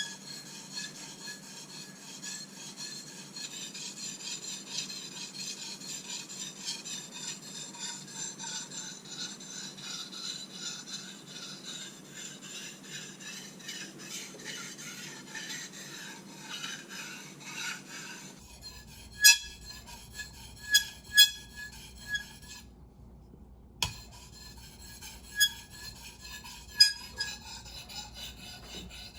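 Knife blade being stroked back and forth across a wet 1000-grit Japanese water stone, a steady rasping scrape. About eighteen seconds in, the sound changes and several sharp clicks break through the scraping.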